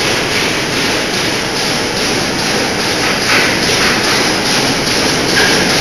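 Automatic multi-channel food packing line running: a steady, dense mechanical clatter of conveyors and wrapping machinery.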